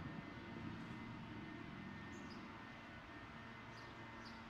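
A few faint, high, short bird chirps, one about two seconds in and two close together near the end, over a steady low background rumble.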